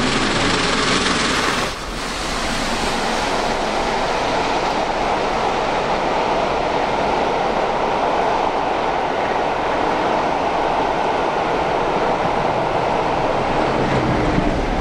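Steam-hauled train led by the LNER Peppercorn A1 Pacific 60163 Tornado passing close beneath. The loudness dips briefly a little under two seconds in as the locomotive goes under, then a steady rushing rumble of the coaches rolling past on the rails.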